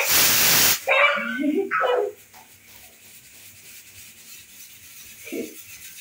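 Pressure cooker whistle going off: a loud rush of escaping steam that cuts off abruptly under a second in. Voices exclaim right after it, and a short voice sounds near the end.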